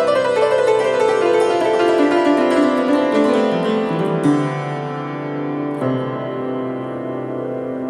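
Keyboard music: a quick run of notes stepping downward for about four seconds, then softer held low notes.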